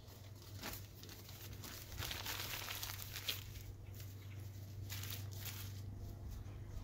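Crumpled magazine paper being handled, crinkling and rustling in irregular bursts, heaviest about two seconds in and again near five seconds, over a steady low hum.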